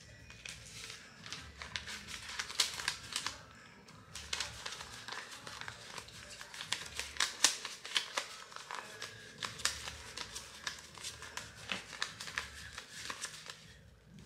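Paper dollar bills flicked and shuffled one at a time as a stack of cash is counted by hand: a quick, uneven run of crisp paper flicks and crinkles, with a short pause about four seconds in.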